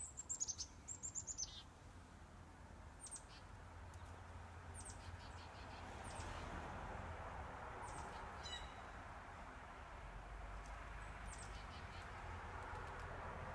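Small birds calling: a quick series of high, falling chirps at the start, then single or paired high chirps every couple of seconds, over a faint steady background hiss.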